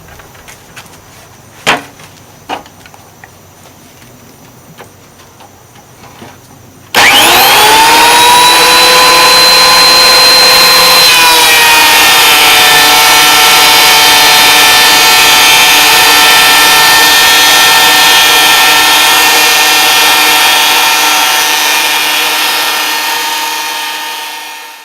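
Electric thickness planer starting up with a sudden rising whine, then running loud and steady while it dresses rough-sawn red cedar to thickness; its pitch settles a little lower a few seconds after starting. A few faint knocks come before it starts, and the sound fades out at the end.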